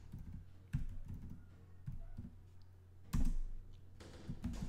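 Keystrokes on a computer keyboard: a few scattered taps, the loudest about three seconds in, entering a subnet mask.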